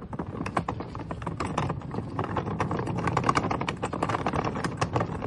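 The casters of a four-wheel furniture dolly rolling over a tiled path, a rapid, irregular clatter of clicks and knocks that grows louder.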